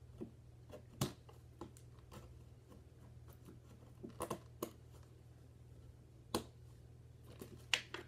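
Clear plastic doll packaging being handled and pulled apart by hand: scattered sharp crinkles and clicks, one about a second in, a quick cluster around four seconds, and a few more later.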